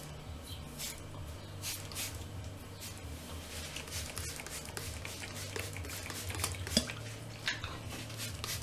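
Soft rustling and crackling of a hand working through damp, coily hair, with scattered faint crackles over a low steady hum.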